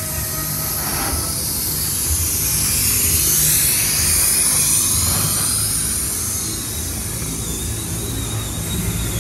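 Freight train of hopper wagons rolling past at close range: a steady rumble of wheels on rail. High-pitched whining tones from the wheels sweep up and down about midway, where the sound is loudest.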